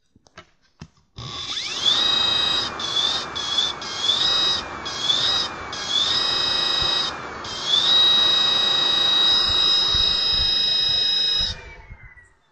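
Rewired 36-pole washing-machine motor driven by an e-bike controller, making a loud high-pitched electrical whine. The pitch rises as the motor spins up, and the throttle is let off and opened again several times. It then holds steady at speed before the whine dies away and the pitch falls as the motor winds down near the end.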